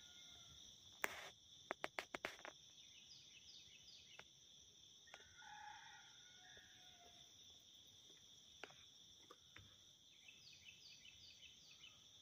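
Quiet dawn outdoor ambience: a faint steady high-pitched drone, a few sharp clicks a second or two in, and a faint distant call about halfway through.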